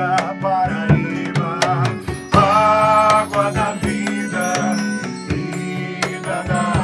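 Live acoustic folk band: a man sings a melody, holding one long note about two seconds in, over acoustic guitar, flute and hand percussion with a rattle.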